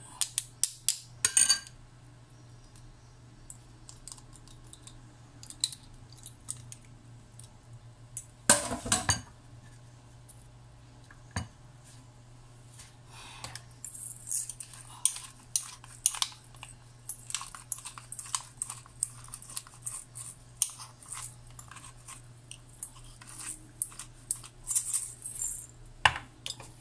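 Metal kitchen utensils clicking and clinking over a bowl: a garlic press being worked, with one loud clatter about a third of the way in. From about halfway there is a long run of quick clicks and scraping as a hand grinder is twisted. A steady low hum runs underneath.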